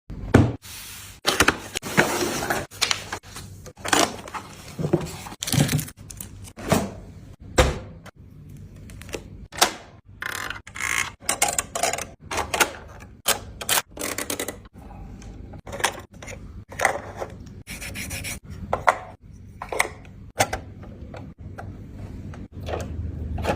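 Irregular clicks, scrapes, thunks and rustles of a boxed diecast model car and its packaging being opened and handled.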